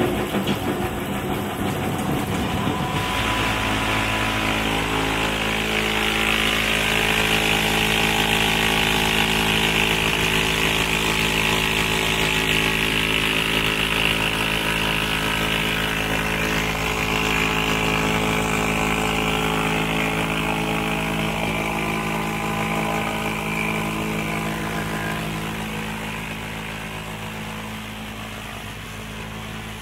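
Rotary log peeling machine cutting a log into OSB strands: a steady electric-motor hum under a loud hissing rasp of the knife shaving wood. The shaving hiss settles in about three seconds in and fades away over the last few seconds while the motor hum carries on.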